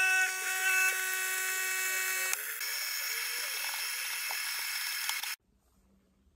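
Capsule coffee machine's pump running with a steady high whine and hiss while it dispenses coffee, changing note about two and a half seconds in and cutting off suddenly about five seconds in.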